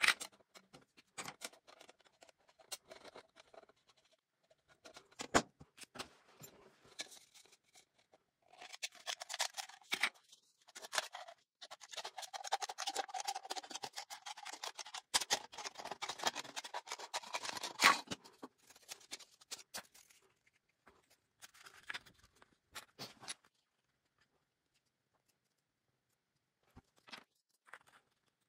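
Scissors cutting through a thin aluminium drink can: after several seconds of scattered clicks and taps from handling the can, about ten seconds of dense rasping and crackling as the blades shear the metal, then more clicks that die away near the end.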